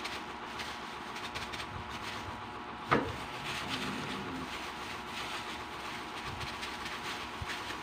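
Plastic-gloved hand crinkling and squishing a chopped malunggay patty mixture in a bowl, over a steady rough background noise. One sharp knock about three seconds in.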